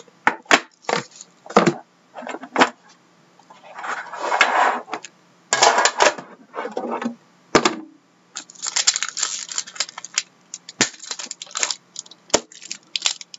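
Hockey card box and its foil-wrapped pack handled on a wooden desk: sharp clicks and knocks as the box is set down and opened, short rustles, then a run of small crackles in the last few seconds as the foil wrapper is torn open.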